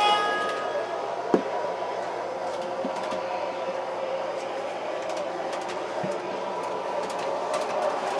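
O-gauge MTH Proto-Sound 3 streetcar running on the layout loop, a steady mechanical whir with track noise. A held multi-tone horn from its sound system cuts off within the first second, and a single sharp click comes about a second and a half in.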